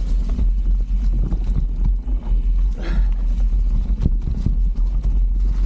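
Mountain bike running downhill over rough trail: a steady heavy rumble of wind and ground noise on the bike-mounted camera's microphone, with frequent rattling knocks as the bike hits roots and rocks. A brief higher-pitched sound breaks through about halfway.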